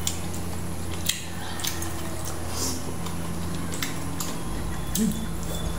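Eating sounds: slurping of sinigang soup and vegetables from a spoon, with a few sharp clicks of a metal spoon against a ceramic bowl, over a steady low hum.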